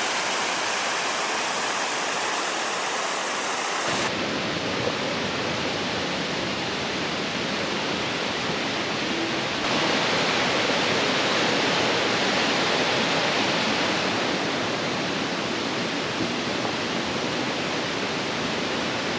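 Steady rush of a mountain river tumbling through a rocky gorge, its tone shifting abruptly about four and ten seconds in.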